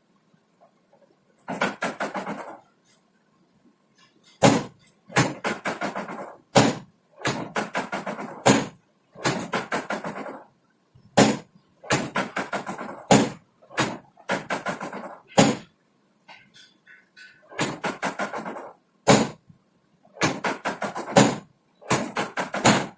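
A long run of sharp knocks, roughly one a second, most of them followed by a short, rough, rattling burst.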